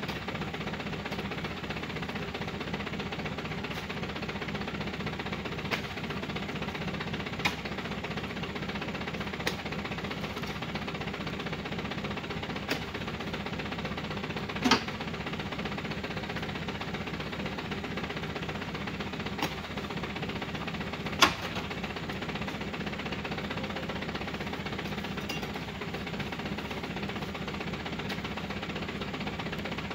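Truck engine idling steadily, with sharp thuds every few seconds as heavy oil palm fruit bunches are thrown up and land in the truck's bed.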